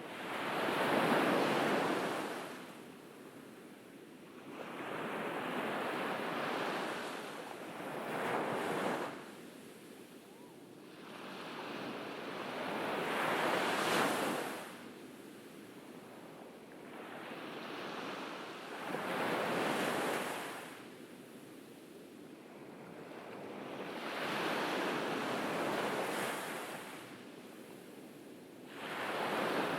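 Ocean waves breaking on a beach and washing back. Each surge rises and fades in turn, about every five or six seconds, with quieter wash between them.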